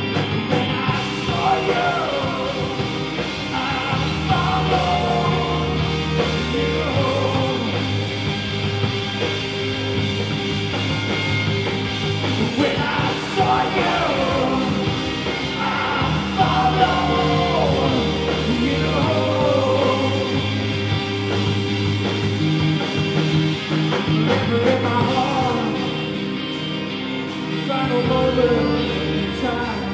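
Live rock band playing: electric guitars, electric bass and drums under a bowed violin line, with the bass notes changing every few seconds.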